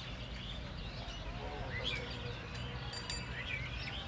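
Birds chirping: many short, quick calls and whistles, some rising or falling, over a steady low background rumble.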